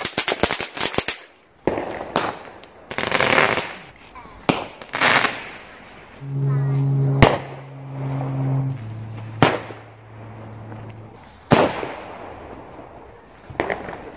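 Small garden fireworks going off: a fast crackle at the start, then several short hissing whooshes and a handful of sharp single bangs spread through, as small rockets go up and burst.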